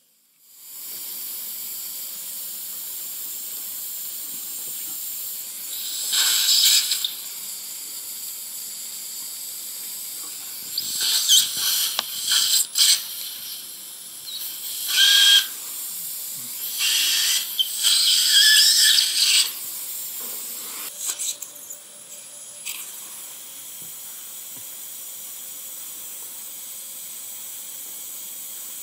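Surgical suction running with a steady hiss, with several louder hissing surges lasting up to about a second, between about six and twenty seconds in.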